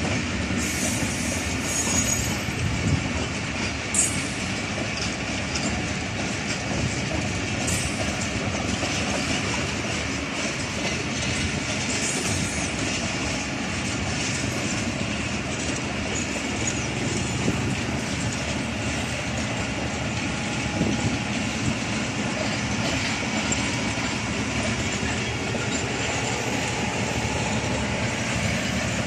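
A long passenger train's coaches running past on the rails: a steady, even noise of steel wheels on track, with a sharp click about four seconds in.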